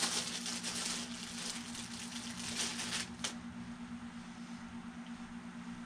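Handling noise: rustling and crackling for about three seconds, then a single sharp click, over a steady low hum.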